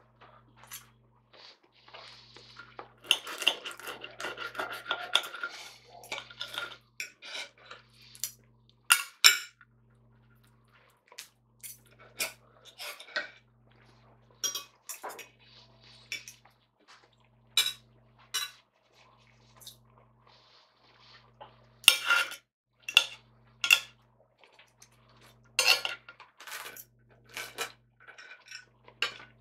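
Knife and fork scraping and clinking on a plate while cutting up food. A stretch of steady scraping comes a few seconds in, followed by scattered sharp clinks.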